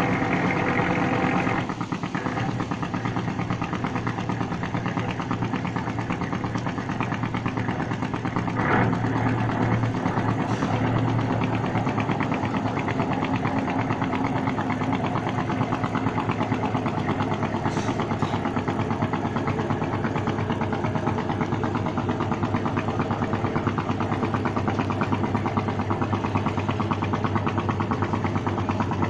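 A boat engine running steadily with a fast, even chugging beat, easing off a little about two seconds in.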